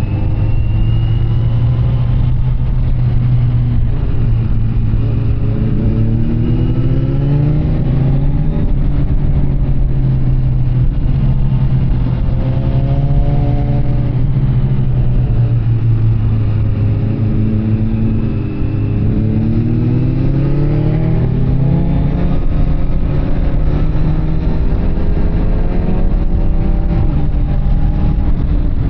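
Kawasaki Z900 SE inline-four engine through an SC Project CR-T carbon exhaust, running under way: its note rises several times as it accelerates through the revs and drops back between pulls, over a steady low drone.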